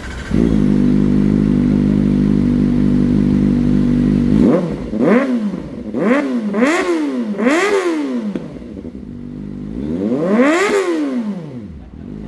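Kawasaki ZX-4RR's 399 cc inline-four, breathing through an aftermarket slip-on exhaust, idles steadily. About halfway through it is blipped four times in quick succession, then given one longer rev near the end before it drops back to idle.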